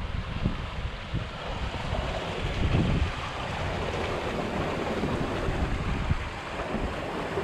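Steady rush of water running under and through the ice of a partly frozen waterfall, with wind gusting on the microphone.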